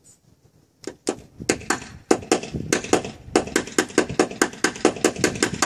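Quick repeated sharp taps of a hammer on a paintless-dent-repair knockdown tool against a car's door panel, about four or five a second, starting about a second in: tapping down high spots around the dent.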